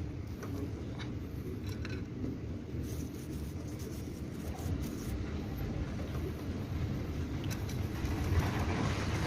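Steady low mechanical rumble with a few faint clicks, from a KTM motorcycle's drive chain running over its sprockets as the raised rear wheel turns while the chain is being lubricated; it grows a little louder near the end.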